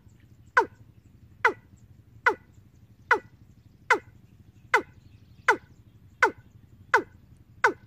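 A recorded bird lure call, the "ayam tembaga" call, played through horn loudspeakers from a bird-trapping amplifier: a short, sharp call dropping steeply in pitch, repeated evenly about once every 0.8 seconds, over a faint low hum.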